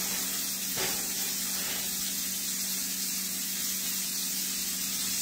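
Oster waffle maker steaming as a waffle bakes inside: a steady hiss of escaping steam with a low hum under it.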